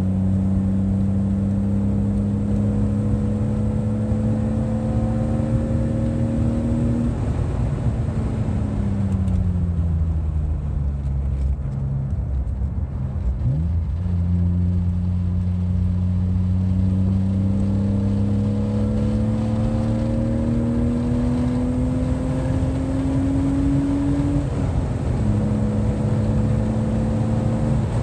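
Car engine heard from inside the cabin at speed on a track: its pitch climbs steadily under acceleration, falls away under braking about seven seconds in, gives a quick sharp blip of revs about halfway, then climbs again for about ten seconds before dropping suddenly at a gear change near the end. A steady rush of road and wind noise runs underneath.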